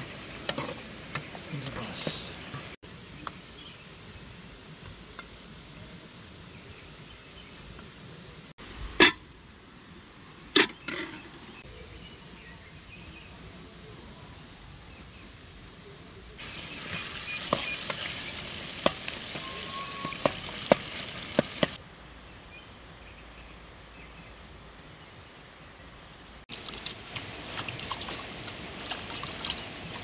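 Tomatoes sizzling in oil in an aluminium pot on a camping gas stove, a metal spoon clinking and scraping against the pot as it stirs. The sizzling comes and goes in stretches with quieter outdoor background between, and two sharp knocks stand out about nine and ten seconds in.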